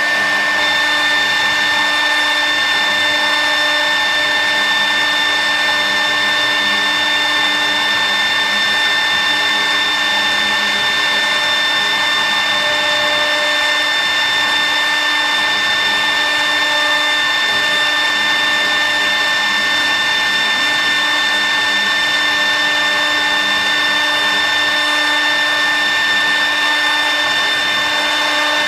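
Spindle of a mini CNC router with a rotary cylinder axis, running steadily with a high whine over a hiss while engraving wood.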